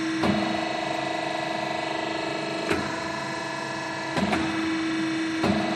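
Hydraulic busbar machine running, its pump hum stepping between a lower and a higher pitch with a sharp click at each change, four times: the solenoid valves switching as the shearing station's ram strokes and returns.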